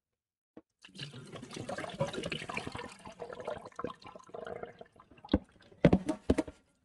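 Water splashing and pouring out of a bowl of raw chicken pieces into a stainless steel sink as the soaking water is drained off, then three sharp knocks near the end.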